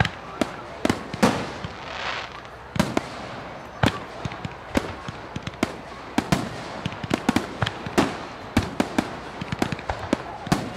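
Fireworks display: about twenty sharp bangs and pops at uneven intervals, sometimes several a second, with a short crackling hiss about two seconds in.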